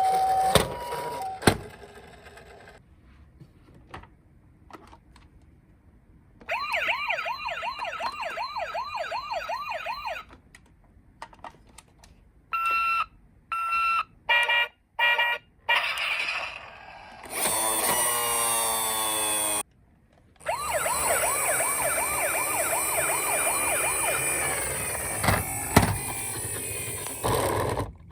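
Electronic siren sounds from toy ambulance minicars, played one after another. A two-tone siren at the start, then a fast warbling wail, stuttering on-off beeps, a sweeping tone, and a long wavering wail through the last third, with short pauses and clicks between them.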